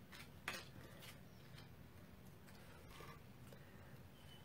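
Near silence, with a few faint soft taps and rustles of paper card pieces being handled and set down on a card.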